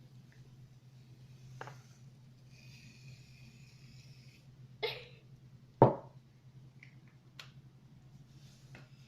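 Aerosol shaving cream can hissing out foam for about two seconds, among a few sharp clicks and knocks, the loudest about six seconds in.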